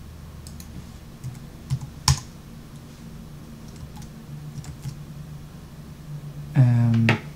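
A few scattered computer keyboard key presses as values are typed into software settings fields, the sharpest about two seconds in, over a low steady hum.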